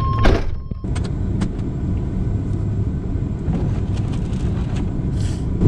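Van driving, with a steady low rumble of engine and road noise heard from inside the cabin and a few faint ticks and rattles.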